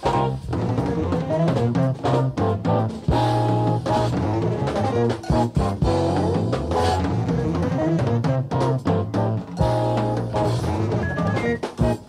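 Live jazz-fusion band playing, drum kit and bass to the fore, with many sharp accented hits. It is a 1970s concert recording played back from cassette tape.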